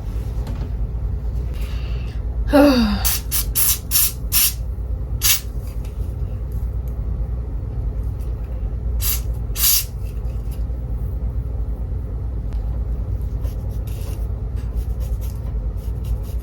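Several short hisses, like squirts of a hair spray, over a steady low hum, with a brief falling sigh about two and a half seconds in.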